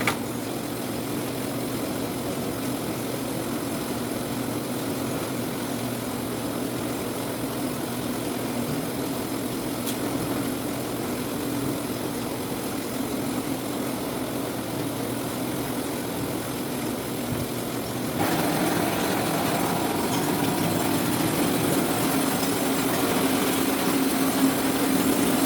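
Citrus sorting machine running steadily, a continuous mechanical drone and rattle; it becomes louder and brighter about 18 seconds in.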